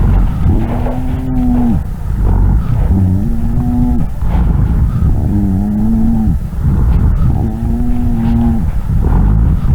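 Lung sounds heard through a stethoscope, with a low-pitched, musical, snore-like tone (rhonchi) on each breath. The tone comes four times, about a second each and roughly every two and a half seconds, over a steady low rumble.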